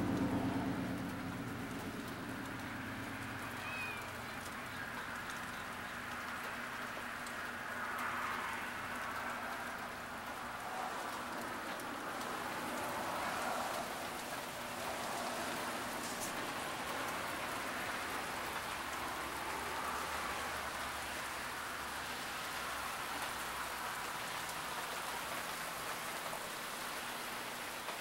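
Steady thunderstorm rain falling, an even hiss with no thunder. A low rumble fades out about a second in.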